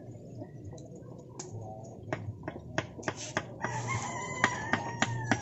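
Kitchen knife slicing a pineapple on a wooden cutting board: a run of sharp knocks, about three a second. A rooster crows over the last two seconds.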